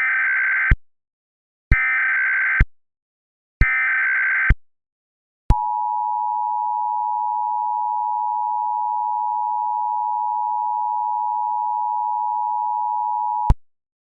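Emergency Alert System SAME header: three bursts of warbling data tones, each about a second long, with a click at each start and stop. Then comes the eight-second two-tone EAS attention signal, a steady high dual tone that cuts off abruptly. This is the alert opening before the voice message.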